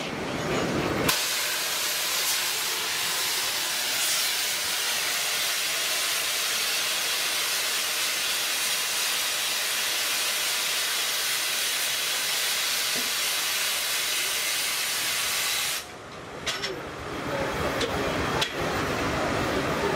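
Steam engine venting steam in a loud, steady hiss that starts abruptly about a second in and cuts off suddenly near the end. Lower machinery sound with a couple of knocks follows.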